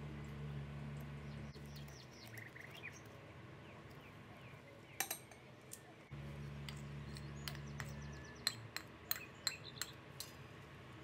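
Metal whisk and spoon clinking against a glass mixing bowl while batter is mixed and flour is added: a couple of sharp clinks about halfway through, then a quick run of clinks near the end. A low steady hum cuts out abruptly twice.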